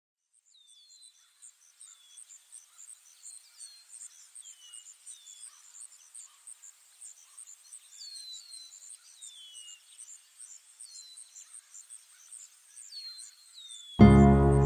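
Nature ambience: insects chirping in a fast, even pulse high up, with short downward-sliding bird whistles every second or so. Music comes in suddenly and loudly near the end.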